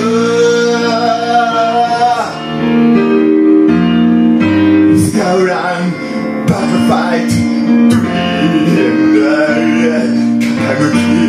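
Man singing into a karaoke microphone over a karaoke backing track, the voice pausing for a few seconds between phrases while the accompaniment carries on.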